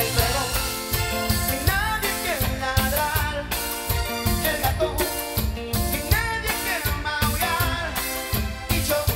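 A live band playing a grupero song: drum kit and electric bass keep a steady beat under a male lead voice singing.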